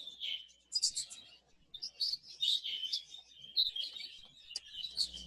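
Exhibition (English) budgerigars chirping, a scattering of short high chirps and tweets from several birds.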